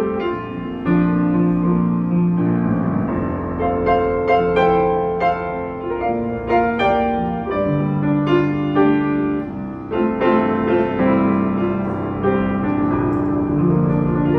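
1984 Yamaha U3 upright piano being played: a flowing piece of held chords in the bass with a melody of struck notes above, each note ringing on, and a quicker run of notes in the middle.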